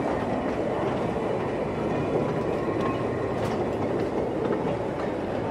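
Narrow-gauge slate and goods wagons of a gravity train, coasting without a locomotive, rolling past on the rails: a steady rumble of iron wheels with a few faint clicks.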